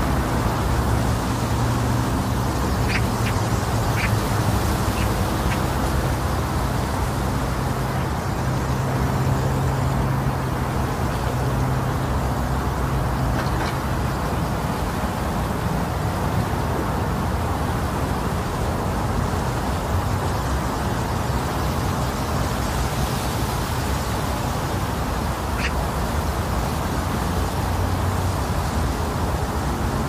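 Wind blowing steadily, an even rushing noise weighted toward the low end with a low rumble beneath it, and a few faint, brief high ticks scattered through it.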